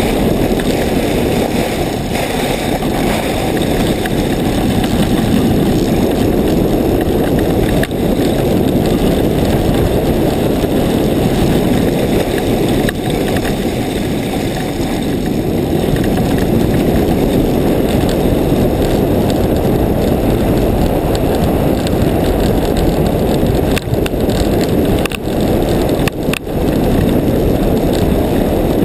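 A steady rush of wind buffeting a helmet-mounted camera's microphone on a fast downhill ski-sled ride, mixed with the sled's skis running over snow. The noise dips briefly twice near the end.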